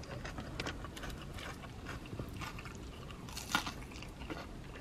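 A person chewing and biting food close to the microphone, with small wet mouth clicks throughout. A sharper bite comes about three and a half seconds in as food is put to the mouth by hand.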